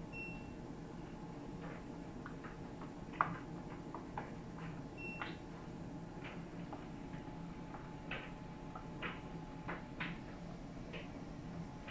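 LG RC91V9AV3Q heat-pump clothes dryer running: a steady low hum from the drum motor and compressor, with irregular light clicks and taps. Two brief high pips, one at the start and one about five seconds in.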